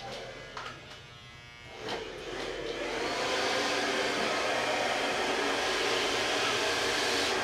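Hand-held hair dryer blowing steadily, growing much louder about two to three seconds in, after a quieter hum with a few handling knocks.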